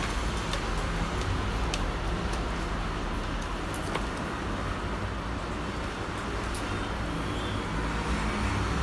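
Steady background noise with a low hum, and a few faint clicks.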